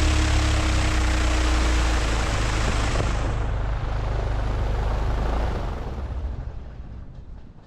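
Glasair Sportsman bush plane's propeller engine running loud and steady, then dying away over the last couple of seconds.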